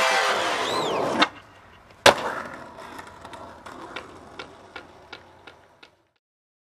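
A skateboard slaps down hard on concrete with one sharp clack, then its wheels tick lightly over pavement seams about three times a second as it rolls away, fading out. A music track dies away just before the clack.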